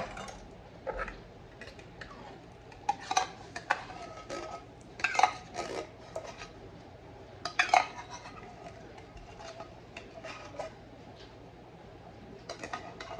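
A metal spoon scraping and clinking against the inside of an opened tin can, working out thick condensed cream soup. Irregular clinks and scrapes, the loudest about five and eight seconds in.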